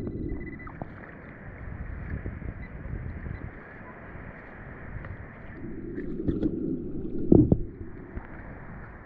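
Sea water sloshing and lapping around a person wading chest-deep, with a sharper splash about seven seconds in.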